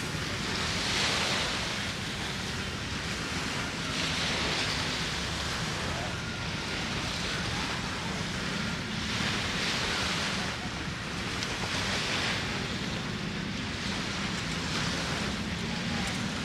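Sea waves washing onto a beach, surging every few seconds, with a low rumble of wind on the microphone.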